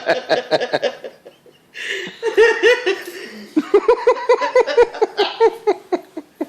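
People laughing hard in rapid, repeated bursts, with a short break about a second in before the laughter picks up again.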